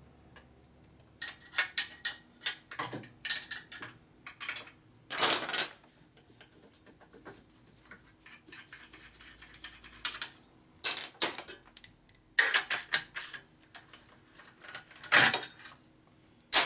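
Metal hand tools clicking and clinking against motorcycle engine parts in scattered clusters, with two louder clattering bursts, one about five seconds in and one about fifteen seconds in.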